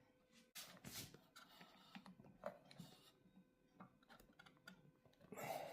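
Near silence with faint, irregular clicks and scrapes of a small screwdriver working on the tight screws that hold an old cuckoo clock's bellows, and a brief louder rustle near the end.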